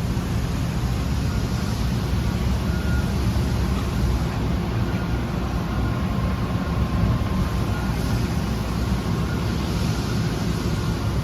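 Steady low machinery rumble with a faint high whine, unchanging throughout.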